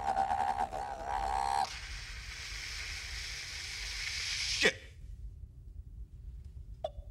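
Electronic-style radar noises made with the mouth: a warbling tone gives way about two seconds in to a steady hiss like TV static. The hiss ends near five seconds with a quick falling sweep that cuts off, and a few soft clicks follow near the end.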